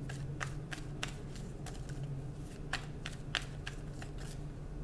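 Tarot deck being shuffled by hand: a string of irregular soft card clicks and slaps, over a steady low hum.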